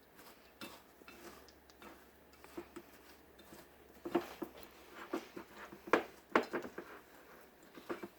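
Spoon stirring peanuts and sticky syrup and sugar in a bowl, with irregular clinks and scrapes against the bowl that grow busier and louder about halfway through.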